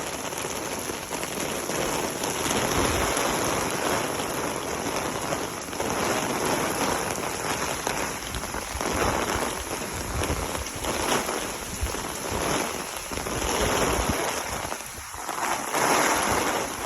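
Hurricane Milton's wind-driven heavy rain pouring down, the rush swelling and easing in gusts every few seconds, with low rumbles in the strongest gusts.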